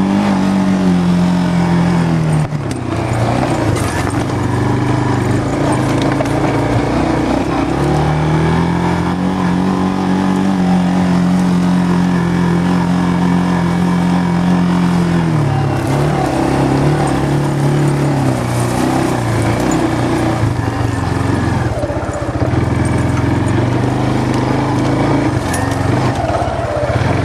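A vehicle's engine running as it drives along a rough farm track, its pitch dropping and rising several times as it slows and speeds up.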